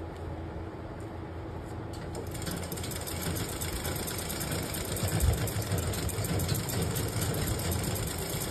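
Sewing machine stitching a side seam in salwar fabric: a low motor hum, then the fast, even ticking of the needle picks up about two seconds in and runs steadily.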